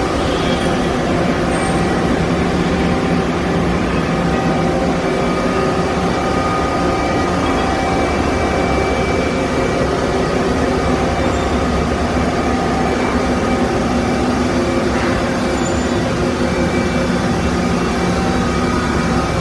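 Steady mechanical hum of a powered-up Okuma Multus U3000 CNC mill/turn center and its auxiliary units, with several constant tones held unchanged throughout.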